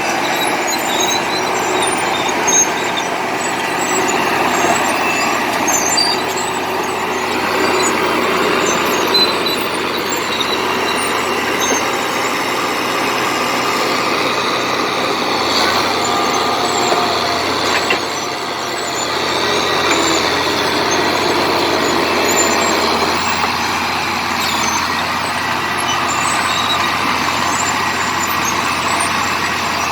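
Komatsu D70LE crawler bulldozer's diesel engine running steadily under load as the machine works.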